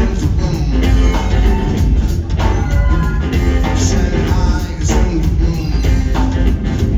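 A live band playing a rock song, with a heavy bass line and a steady drum beat.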